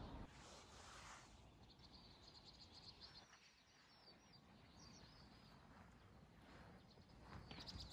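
Near silence: quiet outdoor ambience with faint, scattered high bird chirps and a brief soft rush of noise about half a second in.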